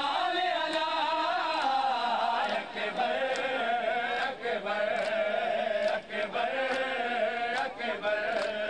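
Male voices chanting a nauha, a Shia mourning lament, in long held lines. Sharp slaps of matam chest-beating cut through at irregular moments.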